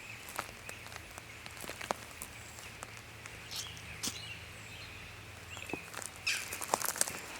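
Wood campfire crackling: irregular sharp pops and snaps over a faint steady hiss, with a quick cluster of louder snaps about six seconds in.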